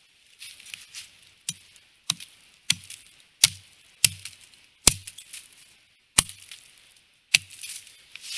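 Hatchet chopping into a dry, dead fallen log: about eight sharp strikes with a short ring, roughly one every two-thirds of a second, with a longer gap about five seconds in. Dry leaves rustle underfoot between strikes.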